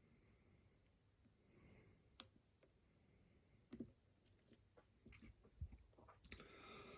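Faint, scattered clicks of a lock pick and tension tool working the pins of a challenge lock; the clicks come closer together in the second half.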